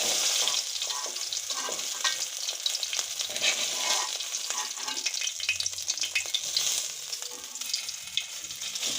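Chicken pieces sizzling in hot oil in a kadai, with a utensil repeatedly scraping and clicking against the pan as the chicken is turned and lifted out.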